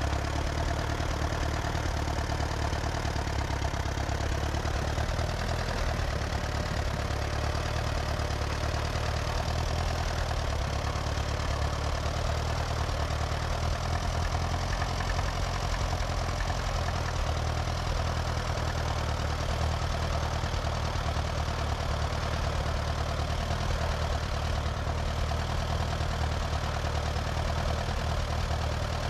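Portable band sawmill's engine running steadily, an even hum that does not change.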